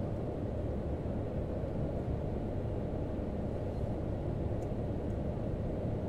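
Steady low outdoor rumble with no distinct source, with two faint ticks about two-thirds of the way through.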